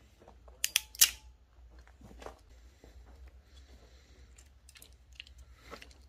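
Hand tools and crimp connectors being handled: a pair of sharp clicks about a second in, then lighter clicks and clatter as a hand crimping tool is picked up.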